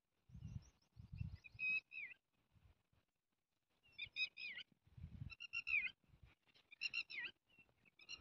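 A bird singing faint, repeated short chirping phrases that bend up and down in pitch, about five phrases over the stretch. A few dull low bumps, from handling, come in the first couple of seconds and again around five seconds in.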